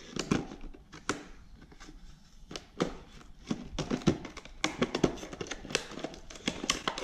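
Plastic packaging crinkling and rustling as it is handled and opened, with many small irregular crackles and clicks that grow busier after about two seconds.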